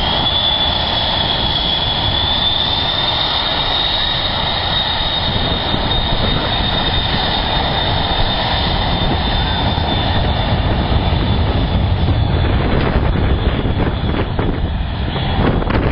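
Twin turbofan engines of a Cessna Citation business jet at high power on its take-off roll: a high, steady whine over a broad rush that fades after about twelve seconds as the jet draws away.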